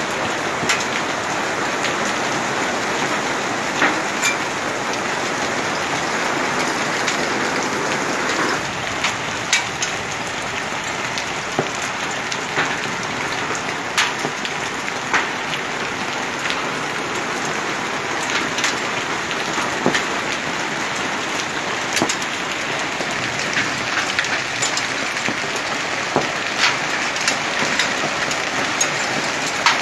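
Heavy downpour falling on a flooded street and pavement: a steady hiss with frequent sharp ticks of drops striking nearby surfaces. The hiss changes slightly about a third of the way through.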